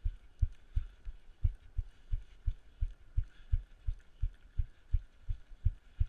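A runner's footfalls picked up through a head-mounted camera: dull low thuds, about three a second, over a faint hiss.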